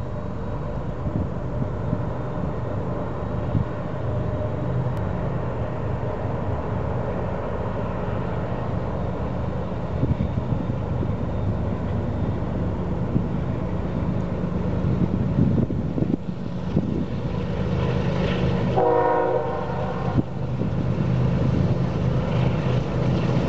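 BNSF freight train's diesel locomotives approaching with a steady low rumble that slowly grows louder. About three-quarters through, the lead locomotive sounds its air horn once, a chord lasting a little over a second.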